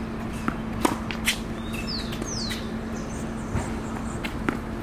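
Tennis rally on a hard court: sharp pops of the ball off racket strings and off the court, the loudest two about a second in, then a few fainter knocks later.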